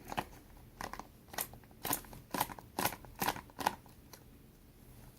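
Packaging being opened: a run of about seven sharp crackling snips, roughly two a second, from about a second in until nearly four seconds in.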